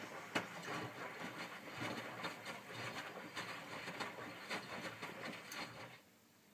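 Miele W562 front-loading washing machine's drum turning during the rinse, cotton bedding tumbling and sloshing through the rinse water with many splashes and knocks. The tumble stops suddenly about six seconds in, the usual pause between drum reversals.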